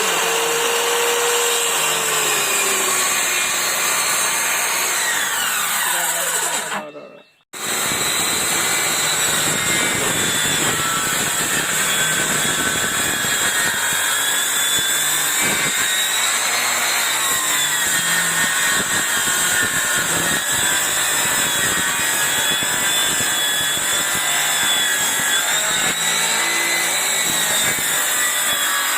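Electric power saw cutting wood: a steady, loud running whine whose pitch wavers as the blade takes the load. It cuts out briefly about seven seconds in, then runs on.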